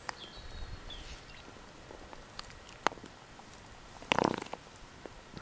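Cooked white beans tipped from a plastic tub into a pot of hot soup, landing with a short wet splash about four seconds in, after a few light clicks of the tub.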